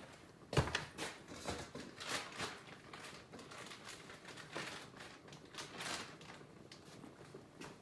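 Kitchen handling noise as flour is put in for battering chicken wings: one sharp knock about half a second in, then a run of light rustles and scrapes that die away toward the end.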